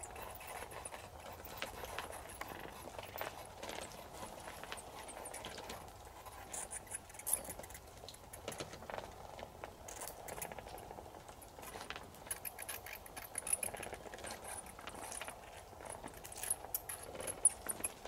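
Bats inside a gap in a wooden wall giving rapid, very high-pitched squeaks and chirps in short runs, busiest in the second half. These are the 'chee-chee' calls first taken for a hidden nestling bird.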